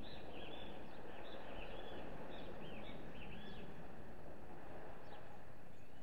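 House sparrows chirping in a busy chorus of quick, repeated short notes. The chirps thin out about halfway through to a few scattered high notes, over a steady low background rush.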